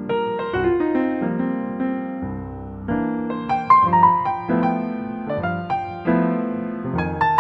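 Background music: a piano melody with struck notes and chords, unhurried and gentle.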